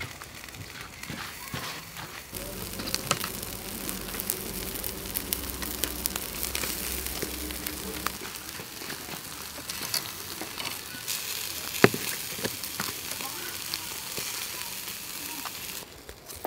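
Whole catfish sizzling and crackling on a charcoal grill, with many small scattered pops.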